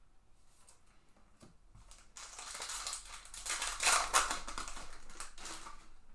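Foil wrapper of a 2021 Bowman Sapphire Edition card pack crinkling as it is torn open by hand. It starts about two seconds in, is loudest just before the middle-to-late part, and dies down near the end, with only faint light ticks before it.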